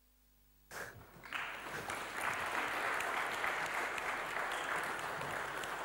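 Congregation applauding, starting about a second in and easing off slightly toward the end.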